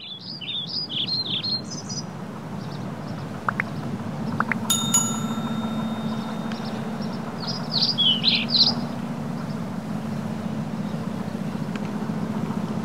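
Birds chirping in quick bursts of short calls over a steady low rumble of background ambience. About five seconds in, a couple of quick clicks are followed by a bright bell-like ding that rings for a second or two, a subscribe-button notification sound effect.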